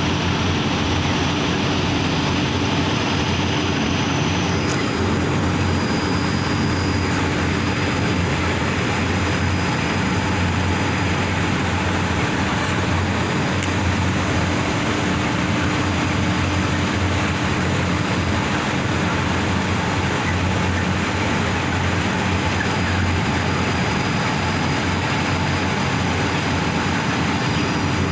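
Steady machinery running: a constant loud roar with a low, even hum that does not change.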